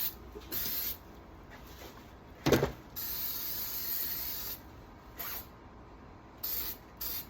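Aerosol can of silicone lubricant spraying in short hissing bursts, with one longer spray of about a second and a half in the middle. A single sharp knock, the loudest sound, comes about two and a half seconds in.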